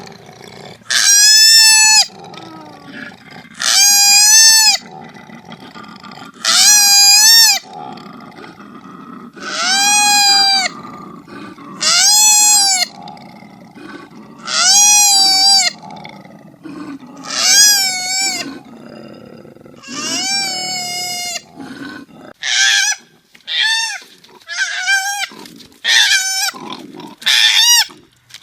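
Koala calling: a series of drawn-out wailing cries, each rising and then falling in pitch, about every two and a half seconds, then a quicker run of shorter cries in the last few seconds.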